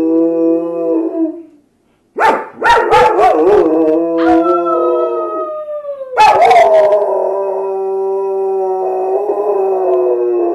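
Dogs howling together in long held howls, several voices overlapping. The howling stops briefly about two seconds in and restarts with a few sharp yips. One higher howl slides down in pitch before a new round starts about six seconds in.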